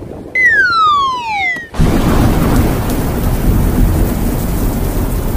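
Title-sequence sound effects: a whistling tone slides steadily down in pitch for about a second and a half, then a loud, steady rushing noise with a deep rumble, like a thunderstorm, takes over.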